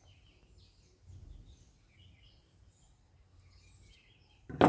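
Faint bird chirps in the background, a brief low rumble about a second in, and a single sharp knock near the end.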